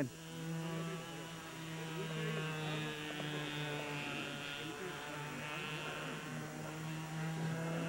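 O.S. .32 glow engine of a radio-controlled model airplane in flight, running steadily at a constant pitch, with a higher whine above it that comes and goes.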